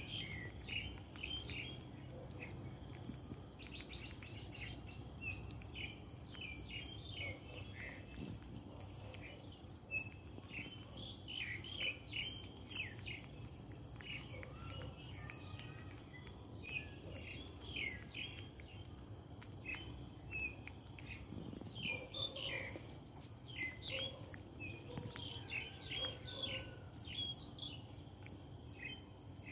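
An insect's steady, high-pitched trill, breaking off briefly every second or two, with many short bird chirps over it.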